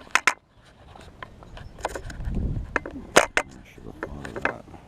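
Sharp clicks and knocks with some low rumbling and scraping from a GoPro and its housing being handled, heard muffled through the closed housing.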